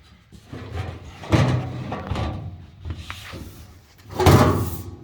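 A handful of dull clunks and clattering knocks from metal plumbing fittings being handled and fitted, the loudest about four seconds in.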